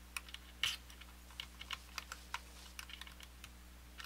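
Light, irregular clicks and taps of a small flat metal hand tool against the control hardware of a Telecaster pickguard as the pots and knobs are being removed, the sharpest click about two-thirds of a second in.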